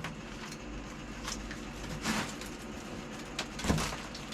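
A few brief swipes of a microfiber towel brushing wood chips off a guitar body, over a faint low background hum.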